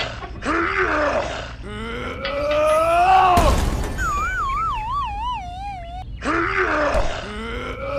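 Cartoon-style voice effects: growling, groaning grunts that swoop up and down in pitch, then a sharp thud about three and a half seconds in. After the thud comes a wobbling tone that sinks over about two seconds, a dizzy effect for a figure knocked out, and then more groaning grunts.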